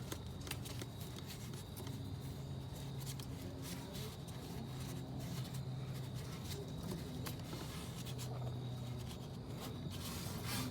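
Faint scattered clicks and light handling noises over a steady low hum, as the new wheel hub is worked into line with its bolt holes.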